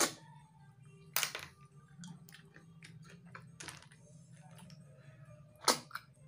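Loud, short slurps as the meat of spicy cooked paddy snails (tutut) is sucked out of the shells: four of them, at the start, about a second in, near the middle and near the end. Smaller clicks come in between.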